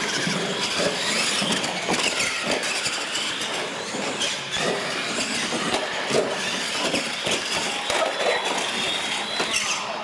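Electric motors and gearboxes of radio-controlled monster trucks whining as they race, the pitch rising and falling with the throttle, with several sharp knocks as the trucks hit and land off the jump ramps.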